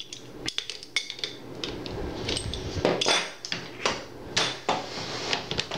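Irregular metallic clicks and clanks of the Uk vz. 59 machine gun's barrel being worked against its receiver. The barrel is not seating straight in.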